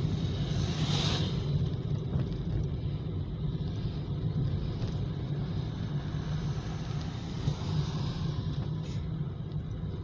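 Road noise from a car in motion: a steady low rumble of engine and tyres, with a brief hiss about a second in.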